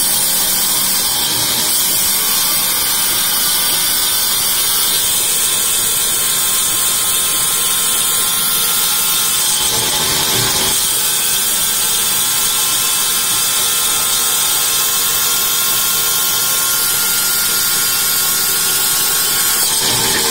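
Vertical band saw running steadily as it rips lengthwise through an akashi (earleaf acacia) log. The higher cutting note drops out briefly about halfway through, then comes back.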